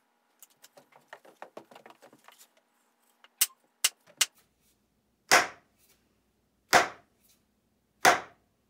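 Wooden mallet striking the end of a hatchet handle, the head hanging below, to drive the handle deeper into the eye of the Plumb hatchet head: a flurry of light taps and clicks, three sharper clicks, then three hard wooden knocks about a second and a half apart.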